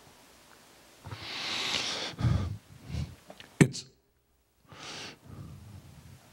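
A man breathing out heavily into a handheld microphone, twice, with a sharp pop from the microphone about three and a half seconds in and a brief moment of dead silence after it.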